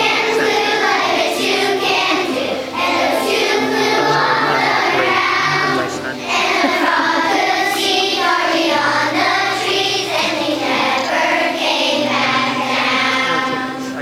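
Large children's choir singing a song together, with steady held low accompaniment notes beneath the voices.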